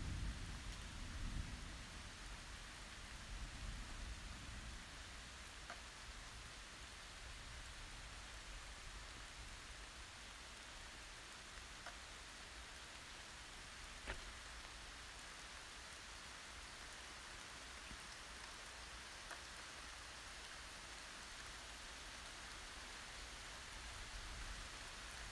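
Steady rain falling, an even hiss. A low rumble of thunder fades out over the first couple of seconds and begins to build again near the end, and a few sharp ticks stand out, the loudest about 14 seconds in.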